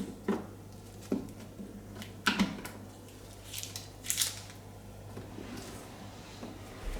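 Light plastic clicks and knocks from handling the dishwasher, with a short rustle about four seconds in, as the dishwasher tablet goes into the detergent dispenser. A faint steady hum lies underneath.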